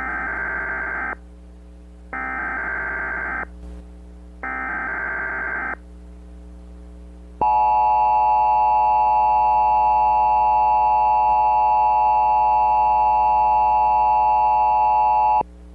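Emergency Alert System tones opening a Required Monthly Test. Three short, screeching bursts of SAME header data, each about a second long with about a second between them, are followed after a pause by the louder, steady two-tone EAS attention signal. The attention signal holds for about eight seconds and cuts off sharply.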